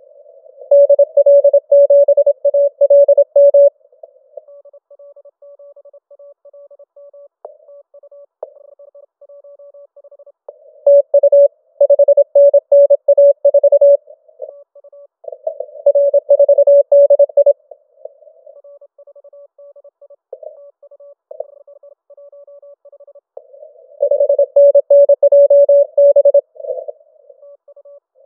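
Morse code (CW) contest exchanges from a Yaesu FT-891 transceiver: a single tone of about 600 Hz keyed rapidly on and off. Four loud stretches of code alternate with fainter code in between.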